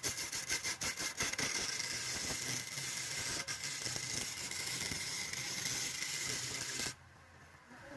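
Wood lathe turning a red wood cylinder while it is smoothed by hand with a rough abrasive held against the spinning surface: a steady rasping hiss with a high steady tone, which stops abruptly about seven seconds in.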